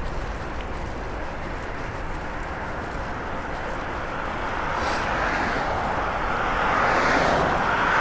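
Wind and road noise from a moving bicycle, with a car passing alongside: its tyre and engine noise swells up in the second half and peaks near the end.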